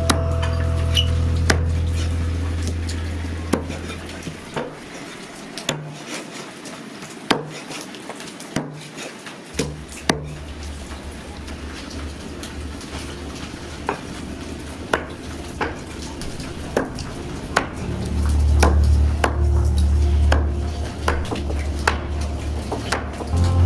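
Cleaver chopping through raw chicken pieces on a wooden chopping board: single sharp chops, about one every half second to a second.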